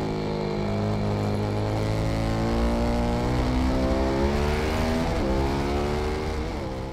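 KTM 1190 Adventure's V-twin, fitted with Arrow exhaust headers, running hard under power on track. The pitch climbs gently for about four seconds, then dips briefly a few times in the second half as the rider changes gear. Wind noise runs underneath.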